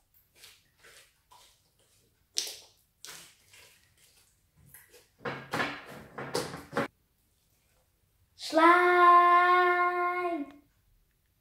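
Homemade glue slime squelching and popping in short, irregular crackles as it is kneaded by hand, with a denser run of squelches a little past the middle. Near the end a girl's voice holds one sung note, steady in pitch, for about two seconds.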